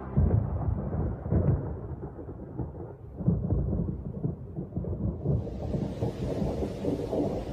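Rolling thunder, a deep rumble that swells and fades in several surges. About five seconds in, the hiss of heavy rain joins it.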